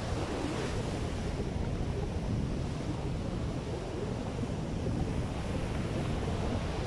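Surf breaking and washing up a sandy beach, with steady strong wind buffeting the microphone.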